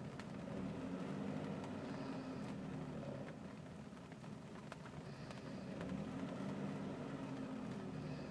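Saab 900 Turbo's turbocharged four-cylinder engine idling roughly. The idle swells for a couple of seconds from about half a second in, sags around four seconds, then swells again near six seconds.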